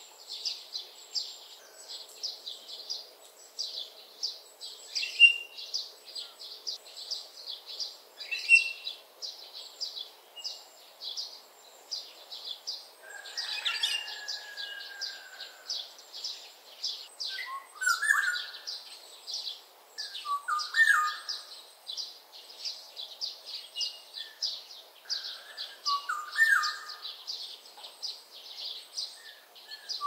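Black-naped oriole giving short whistled phrases, first a single gliding whistle near the middle and then a phrase every few seconds. Behind it runs a fast, continuous high-pitched chirping.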